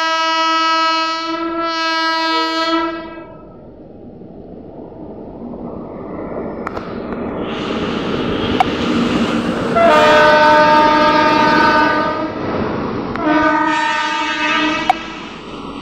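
Double-headed WAG-9HC electric locomotives sounding their horn: a long blast at the start, then a growing rumble and clatter of wheels on rail as they come past close by. Two more blasts follow, a long one about ten seconds in and a shorter one near the end.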